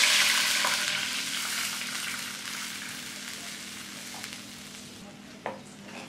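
Water poured into a hot non-stick pan with a little ghee left in it, hissing and sizzling, the hiss fading away over several seconds as the pan cools. Near the end a wooden spatula knocks once against the pan as the water is stirred.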